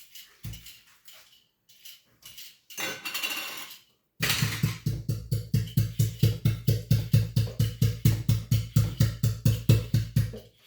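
Scattered light clatter and a short rustle, then, starting abruptly about four seconds in, fast even knocking at about six strokes a second that runs for about six seconds.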